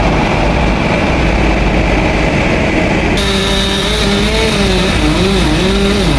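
Two-stroke chainsaw engine running loudly and steadily. About halfway through, its pitch begins to waver up and down.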